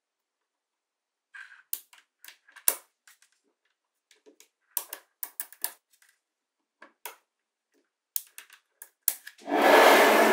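Small magnetic balls clicking sharply as they snap onto one another, in irregular single clicks and quick clusters. Near the end comes a louder noisy rattle lasting about a second.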